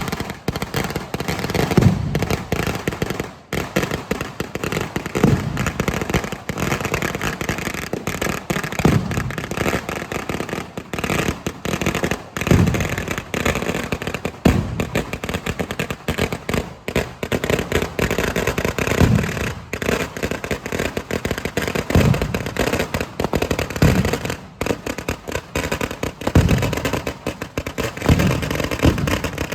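Kerala temple fireworks (vedikettu) going off in a dense, unbroken barrage of firecracker bangs and crackle, with heavier booms every one to three seconds.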